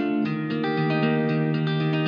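Background music played on plucked guitar, a run of held notes changing every half second or so.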